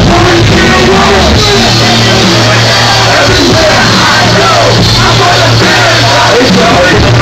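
Loud live concert music over a PA, with a steady deep bass line and voices yelling and singing over it. The phone recording is overloaded and runs flat at the top of its level.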